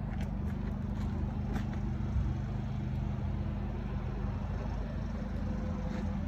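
Generator engine running steadily, a low, even hum.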